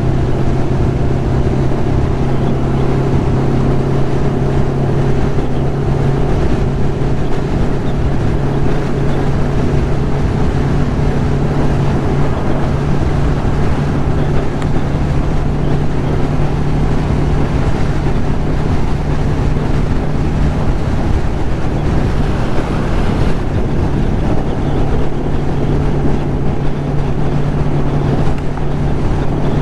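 1996 Kawasaki Ninja ZX-11's inline-four engine running at a steady highway cruise, heard from the rider's seat with wind rushing over the microphone.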